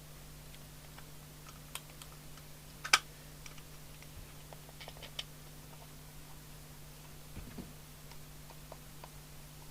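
Scattered light clicks and taps of small plastic parts being handled, with one sharper click about three seconds in, over a steady low hum.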